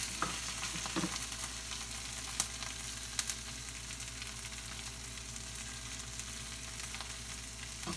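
Kale, cabbage and Brussels sprouts stir-frying in hot olive oil: a steady sizzle with a few sharp pops about two and a half to three and a half seconds in.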